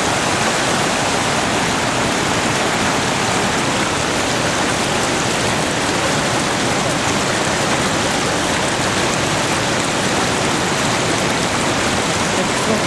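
Loud, steady rush of a creek running full and fast after autumn rain-swell, water pouring over rocks.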